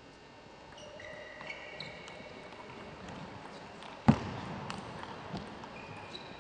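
Table tennis ball being played in a rally: one sharp, loud knock of the ball about four seconds in, then lighter ticks of the ball off bats and table about every half second. Short high-pitched squeaks come and go over a quiet hall backdrop.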